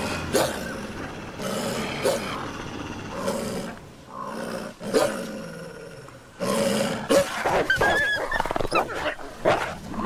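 Grey wolves snarling and growling at each other over a kill, asserting rank in the pack at feeding. The growls grow louder and more broken from about six and a half seconds in, with a brief higher cry near eight seconds.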